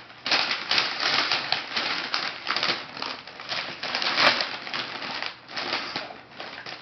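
Shiny green foil wrapping paper crinkling and rustling in quick irregular bursts as a present is unwrapped by hand, loudest a little past four seconds in.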